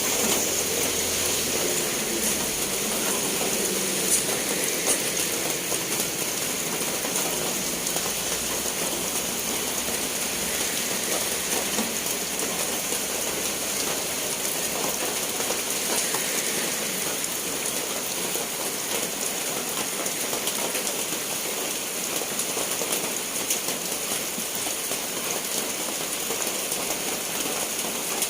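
Steady rain falling, a dense even hiss of many drops pattering on surfaces.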